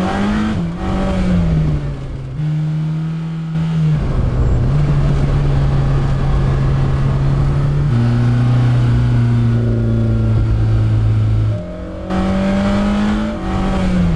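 Mercedes-AMG GT Black Series 4.0-litre twin-turbo flat-plane V8 running and revving. The pitch climbs in the first second and falls back, then holds steady stretches broken by several sudden steps, and rises and drops again near the end.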